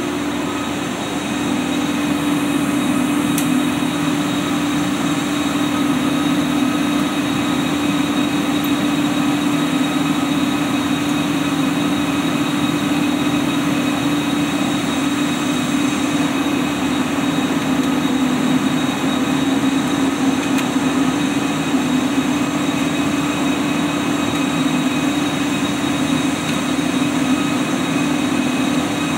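Steady drone of many cooling fans in running GPU crypto-mining rigs and their power supplies: a constant low hum with a few steady higher whines.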